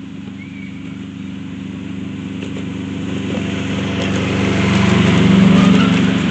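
A 7¼-inch gauge miniature railway train whose small engine-powered locomotive runs steadily, growing louder as it approaches and passes, loudest about five and a half seconds in, with a few light clicks over the engine sound.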